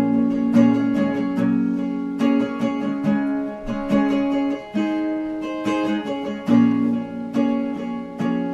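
Acoustic guitar strummed in a slow, regular rhythm, with a change of chord every couple of seconds.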